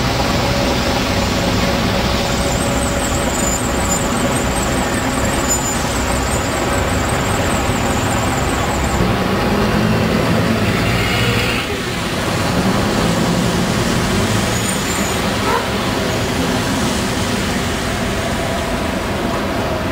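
Diesel single-decker buses running in city traffic, over a steady road hum; about nine seconds in, one bus's engine note rises as it pulls away.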